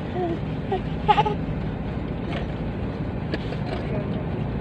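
Steady low hum of a car cabin, with a small child's short vocal sounds near the start, loudest about a second in, and a few light clicks later on.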